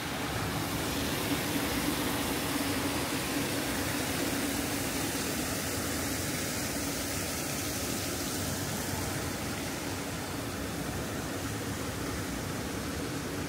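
Steady outdoor city ambience: an even rushing noise with a low, steady hum underneath.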